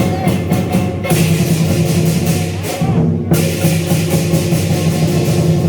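Loud music with a steady drum and percussion beat over sustained pitched tones.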